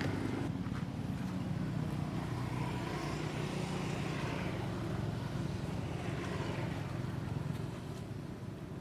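Motor vehicle engine running with a steady low rumble, easing off a little near the end.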